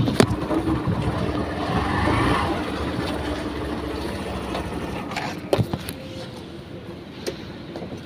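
Hero Glamour Xtec's 125 cc single-cylinder motorcycle engine running at low idle with a steady hum, easing after about five seconds. A few sharp knocks of the phone being handled come around the fifth to sixth second.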